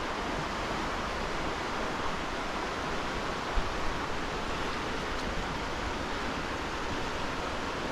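Steady rushing of flowing river water, an even noise that does not change.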